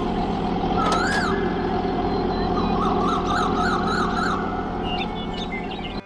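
A siren sounds over a steady rumble: one rising and falling wail about a second in, then a fast up-and-down warble for a couple of seconds.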